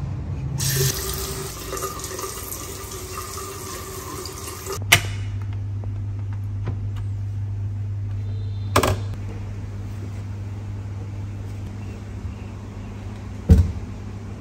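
Water running from a bathroom sink faucet into the basin for about four seconds. It ends in a sharp click, followed by a steady low hum, with two more sharp knocks later.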